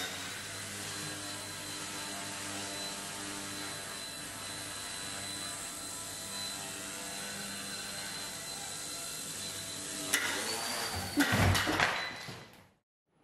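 Small electric C219 Firefox RC helicopter in flight: steady motor and rotor whine with a high tone. About ten seconds in it gets louder and rougher, with knocks and a falling whine, then fades out.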